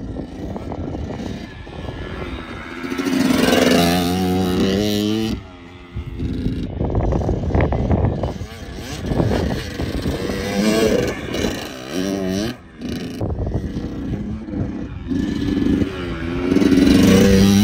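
Dirt bike engine revving in repeated surges, its pitch rising and falling with the throttle, easing off briefly about a third and about two thirds of the way through.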